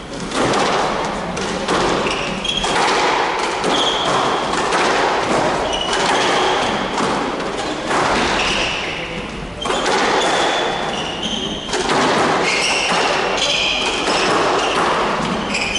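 Squash rally: the ball is struck by racquets and thuds off the court walls again and again, with short high squeaks from the players' shoes on the wooden floor.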